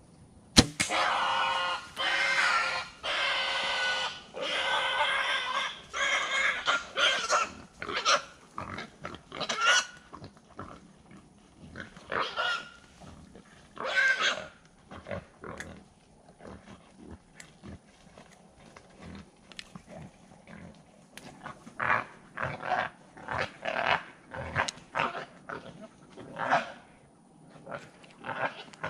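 Feral hogs squealing: a sharp snap about half a second in, then several seconds of loud, long, high squeals, then shorter squeals and grunts that ease off and pick up again in a quick run of short squeals near the end.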